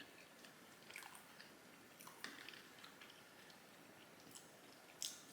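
Faint close-up mouth sounds of someone chewing food, with scattered wet smacks and clicks about once a second and a sharper smack near the end.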